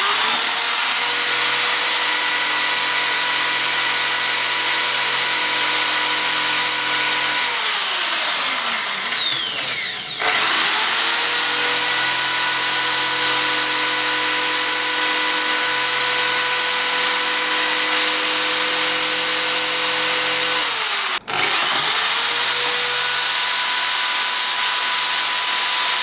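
Electric drill running at speed, its bit boring into a smartphone's cracked glass screen. The motor winds down about seven seconds in and starts up again around ten seconds. It cuts out briefly near twenty-one seconds, then runs on.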